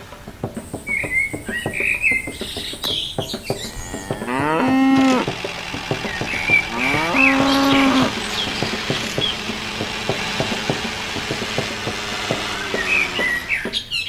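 A cow mooing twice, each call about a second long and a few seconds apart, over small birds chirping and a rapid, irregular clicking.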